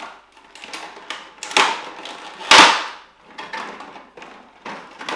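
Board game components and packaging being handled during unboxing: a run of rustles, scrapes and knocks, the loudest a thump about two and a half seconds in.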